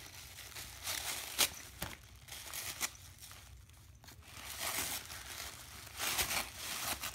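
White tissue paper crinkling and rustling as it is pulled out of a gift and crumpled by hand, in several bursts with a few sharp crackles between.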